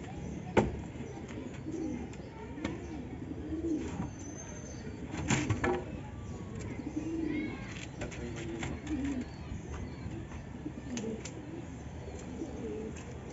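Domestic pigeons cooing again and again in low, rolling calls. A few sharp knocks and clatters come as the wooden coop door and a bamboo pole are handled, the loudest about half a second in and about five seconds in.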